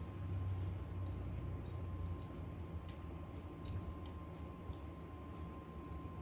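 Light, irregular clicks and taps of small repair tools and phone parts being handled, over a low steady hum.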